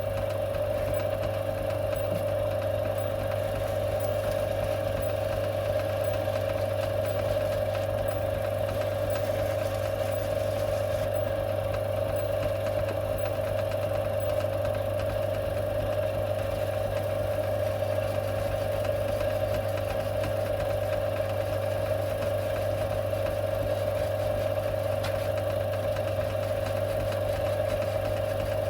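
Metal-working lathe running steadily, a constant machine hum with a steady mid-pitched tone, while a part in the chuck is worked with emery cloth.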